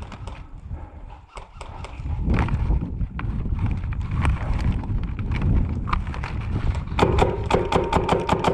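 Hurried footsteps and rustling gear of an airsoft player on the move, loud thuds from about two seconds in. Near the end a quick run of sharp clicks follows, about five a second.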